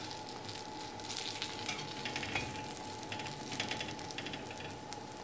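A butter-fried dabeli bun sizzling steadily on a flat iron tawa, with small crackles through the sizzle.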